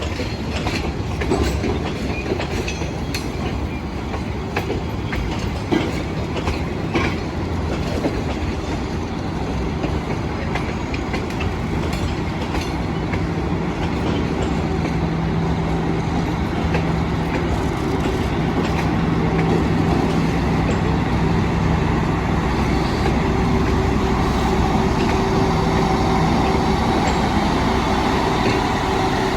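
Passenger train pulling out of the station, its carriages rolling by with wheels clicking over rail joints during the first half. A steady hum over the rumble grows a little louder in the second half.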